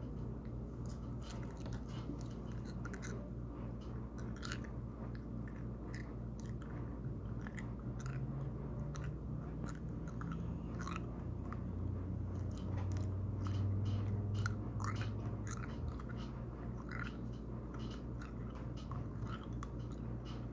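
A person chewing and crunching a snack close to the microphone, in many small irregular crunches, over a steady low hum.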